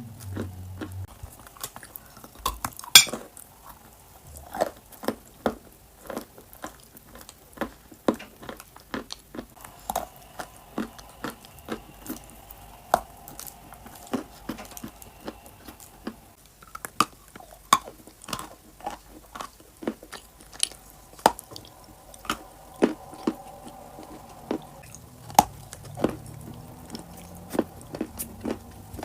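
Close-miked crunching and chewing of edible clay: a string of sharp, irregular crunches and clicks as pieces are bitten and ground between the teeth, the sharpest crack about three seconds in.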